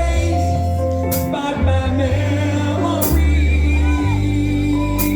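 A live rock band playing a mellow yacht-rock song, with held bass notes, a singer, and a cymbal crash about every two seconds.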